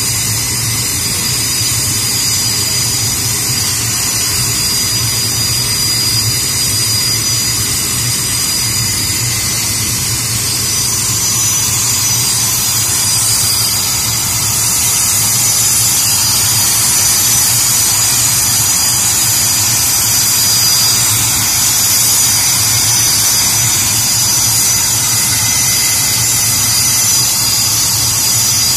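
BAE Hawk jet's Rolls-Royce Adour turbofan running steadily with a high-pitched turbine whine over a low hum, growing slightly louder about halfway through.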